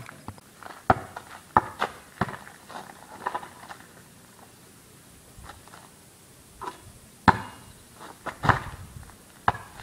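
Footsteps on pavement walking away, fading. Near the end there is a loud sharp knock, then a cluster of thuds as a basketball strikes the backboard and rim of a portable hoop.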